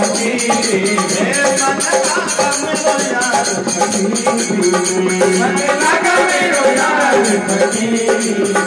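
Indian devotional bhajan music played without singing: a harmonium carrying the melody over a dholak and jingling hand percussion keeping a steady, fast beat.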